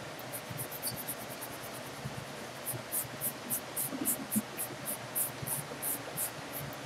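Kneaded eraser rubbed back and forth over pencil on drawing paper: a soft scratchy swish on each stroke, about three or four strokes a second, stronger in the second half. It is lightening the rough pencil sketch down to faint construction lines.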